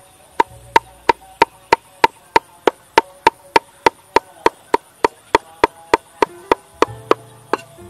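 Steel cleaver chopping rhythmically on a wooden chopping board, mincing a paste with red chillies, about three and a half strokes a second. Each stroke is a sharp knock with a short metallic ring from the blade.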